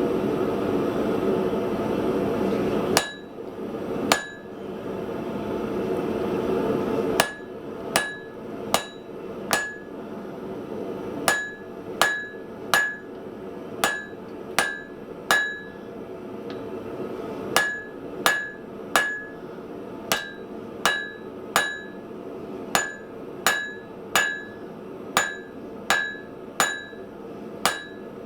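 Hand hammer striking 16 mm round steel on an anvil while forging, each blow ringing with a clear high tone. Two blows come about three and four seconds in, then steady hammering at a little over one blow a second. A steady rushing noise lies under it and is loudest in the first few seconds.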